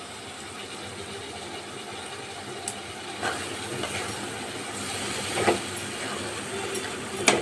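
Onion-and-spice masala sizzling in a metal kadhai over a gas burner, with a wooden spatula stirring and knocking against the pan a few times; a sharp knock comes near the end.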